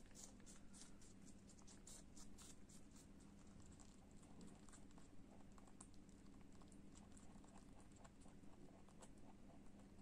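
Holland lop rabbit crunching a piece of apple: quick, crisp crunches for the first few seconds, then sparser, fainter chewing clicks.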